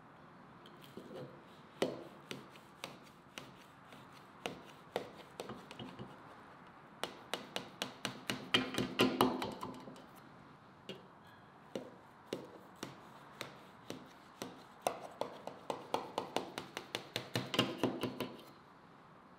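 Kitchen knife cutting through a baked cornbread crust: rapid, irregular crunching clicks, thickest in a run in the middle and another near the end, with quieter single crackles between.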